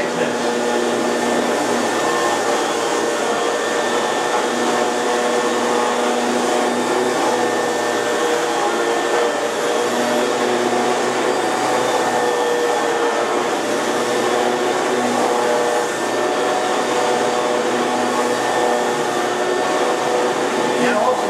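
Rainbow water-filter vacuum running steadily with its carpet shampooer on the rinse setting, wetting and extracting the carpet. The motor gives a steady whine with several held tones.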